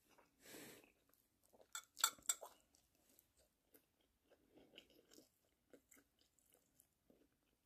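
Faint chewing of a mouthful of hamburger steak and rice, with a short hiss near the start and a few sharp clicks about two seconds in.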